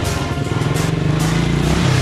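Electronic background music with a quad bike engine running under it.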